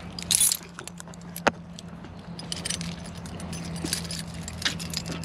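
A bunch of keys on a ring jangling and clicking while a key is worked into the T-handle lock of an aluminium diamond-plate truck toolbox, with several sharp metallic clicks.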